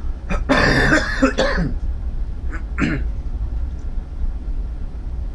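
A man coughing and clearing his throat: one loud, harsh burst lasting about a second, starting about half a second in, then a short throaty sound near the three-second mark.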